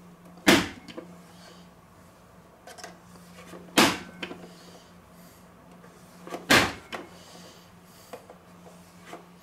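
Plastic vegetable dicer chopping halved hard-boiled eggs: its lid is pressed down through the cutting grid three times, about three seconds apart, each press a sharp clack. Smaller clicks come as the dicer is handled between presses.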